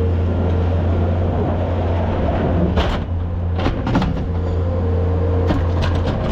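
A machine engine running steadily with a constant low drone, broken by several clanks and knocks about three, four and five and a half seconds in.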